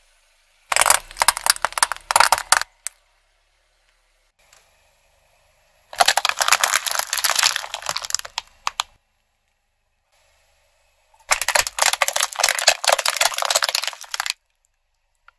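Car tyre rolling over small plastic items and crushing them: three bursts of crackling and snapping, each two to three seconds long, with silence between. Among the items crushed are plastic toys and clear plastic cups of water beads.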